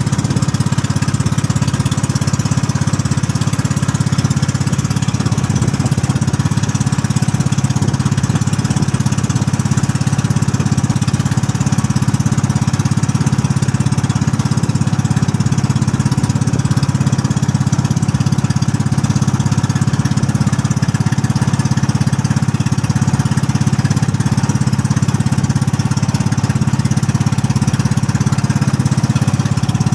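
Boat engine running steadily at a constant speed: a loud, even drone that carries the boat along.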